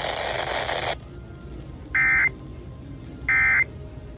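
A broadcast hiss cuts off about a second in, then two short, identical buzzy bursts of Emergency Alert System end-of-message data tones, each about a third of a second long and a little over a second apart. This is the encoded sign-off that ends the alert.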